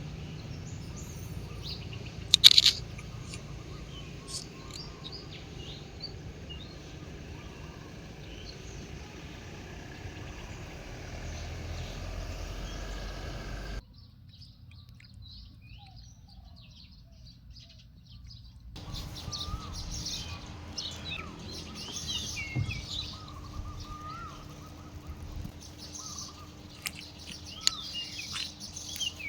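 Small birds chirping and twittering, most busily in the last third. A low rumble runs under the first half, with a sharp knock about two and a half seconds in.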